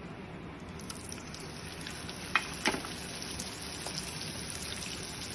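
Marinated, cornflour-coated chicken pieces deep-frying in hot oil in a kadai, a steady sizzle that grows about a second in. Two sharp taps come near the middle.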